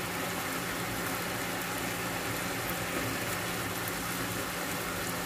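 Pork strips in a soy sauce and lemon marinade bubbling and sizzling steadily in a frying pan.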